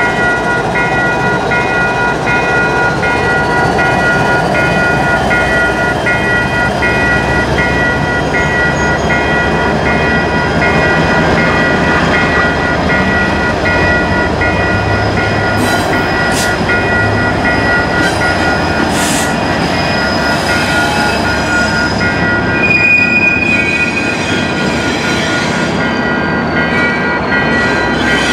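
BNSF diesel freight train rolling past at a level crossing, with steady wheel and car rumble, while the crossing's warning bell rings in an even repeating pattern. A brief high squeal comes late on, and the bell keeps ringing after the train clears.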